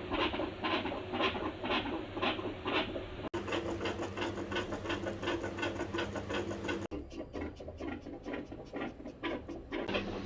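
Pet dogs' heartbeats heard through a stethoscope: a quick, even beat of about two to three a second, with rubbing and scraping noise from the chest piece. It comes in several short recordings cut one after another, changing about every three and a half seconds.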